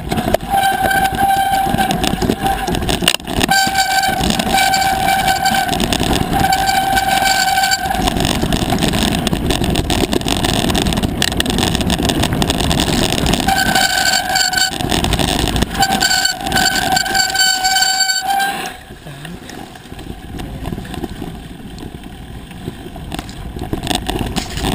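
Mountain bike brakes squealing with a steady, horn-like tone in several long stretches, over wind on the microphone and the rumble of tyres on a rocky dirt trail. The squealing stops about three-quarters of the way through, leaving only the riding noise.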